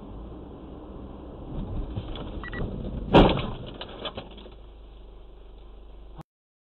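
Car collision heard from inside the cabin: a low road rumble, then one sudden loud bang about three seconds in as the car strikes another car crossing in front of it, with brief rattles after. The sound cuts off abruptly near the end.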